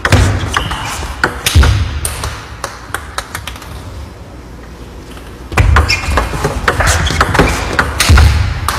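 A table tennis practice rally: the ball clicks sharply off the paddles and the table in quick succession, with a lull a little before the middle. Several heavy low thuds come in among the hits.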